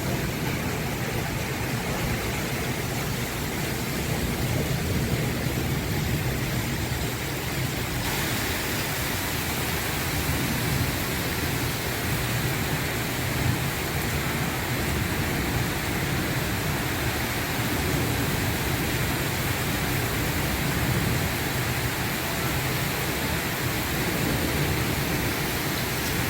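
Heavy monsoon rain falling steadily: a continuous, even downpour hiss.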